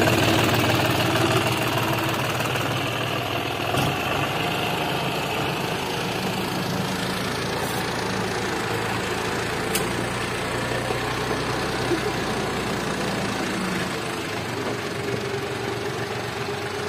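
John Deere 5050D tractor's three-cylinder diesel engine running steadily at low revs as the tractor drives slowly along a rough dirt track, with a few brief clicks.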